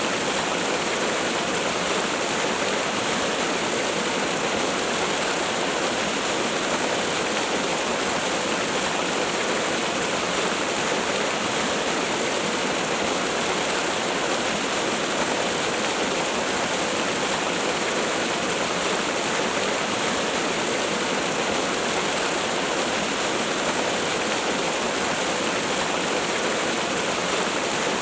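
Waterfall: falling water pouring in a steady, unbroken rush.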